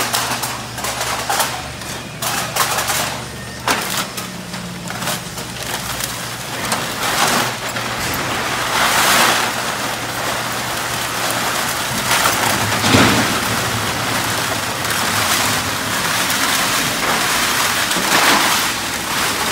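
Crushed aluminum cans clattering into a steel hopper as bags of them are emptied, and rattling up a conveyor belt. The machinery gives a steady low hum underneath, and the clatter comes in heavier surges as each bag is tipped.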